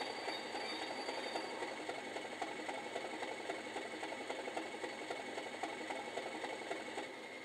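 Accurascale Class 37 model's DCC sound decoder playing a Class 37 diesel engine sound through its small onboard speaker as the model rolls to a stand, a steady engine note with a fast clattering texture. The engine sound drops a little quieter near the end.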